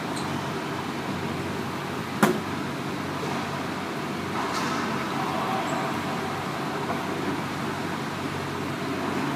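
A single sharp, loud crack of a racquetball being hit about two seconds in, over a steady background rumble of the court.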